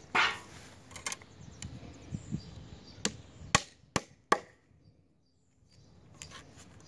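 Hammer driving nails into the tin-capped top of a wooden corbel: a couple of blows in the first second or so, then four quick strikes about half a second apart midway through.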